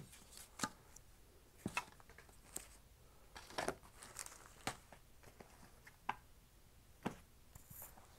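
DVD cases and other items being handled and rummaged through: scattered light clicks and knocks at irregular intervals, with a stretch of rustling about halfway through.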